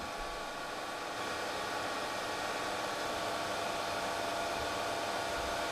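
A steady fan-like whir and hiss, with faint steady hum tones underneath, holding an even level throughout.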